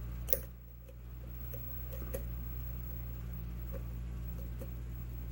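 Lock pick and tension wrench working the pin stack of an ABUS 80/45 padlock: scattered light clicks, with a sharper click about a third of a second in, over a steady low hum.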